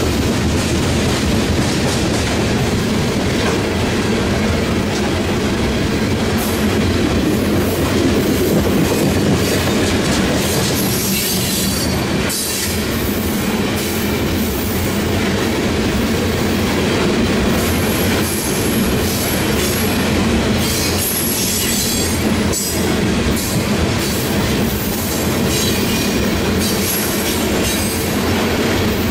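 Cars of a BNSF coal train rolling past close by: a steady heavy rumble of steel wheels on rail, with high-pitched wheel squeals coming and going in the second half.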